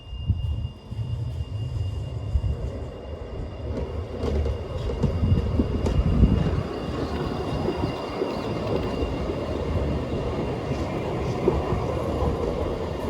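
Tram running on its rails, its rumble growing louder over the first few seconds and then holding steady, with a thin steady high tone underneath.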